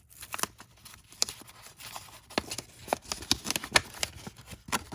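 A cling stamp's package being peeled open and handled: a run of short crinkles and clicks, the sharpest a little under four seconds in.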